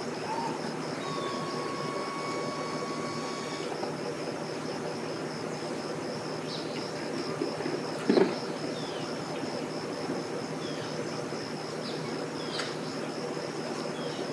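Steady outdoor ambience: a constant hiss with a high, rapidly pulsing trill throughout, and a single sharp knock about eight seconds in.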